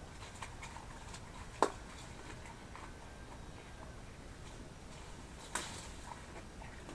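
Scattered faint clicks and ticks over a low hiss, with two sharp knocks about one and a half seconds and five and a half seconds in.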